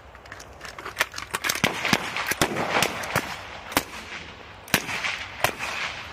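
Rifle shots from several shooters on a firing line: a quick, irregular string of a dozen or more sharp cracks, overlapping at times.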